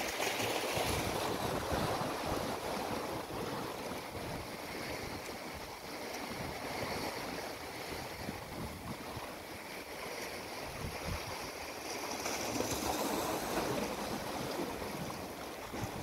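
Small sea waves washing in among shoreline rocks, a continuous rush of surf that swells near the start and again late on.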